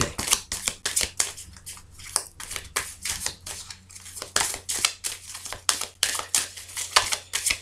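A deck of oracle cards being shuffled by hand: a rapid, uneven run of short papery flicks and snaps as the cards slide and strike one another.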